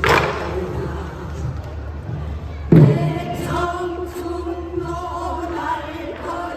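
A group of singers, mostly women, sing a Korean pansori-style folk song in unison, accompanied by buk barrel drums. There is a sharp drum strike right at the start and a louder, deeper one a little under three seconds in.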